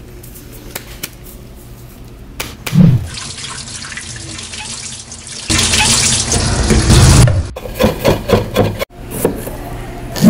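Tap water running over a tomato as it is rinsed by hand, loudest for about two seconds in the middle. A deep thump comes about a third of the way in and another at the end, and a quick run of knocks follows the water.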